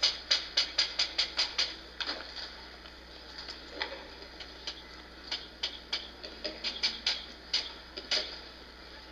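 A series of sharp clicks or taps: an even run at about four a second for the first second and a half or so, then scattered single clicks until near the end.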